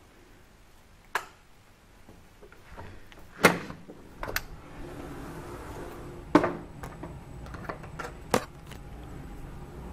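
A few sharp clicks and knocks, about five spread through several seconds, over a faint steady room hum.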